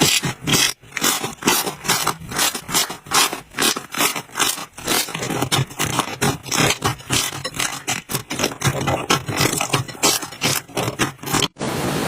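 Hands working slime: a quick, irregular run of sticky crackles and pops. Near the end it breaks off abruptly into a steadier hiss.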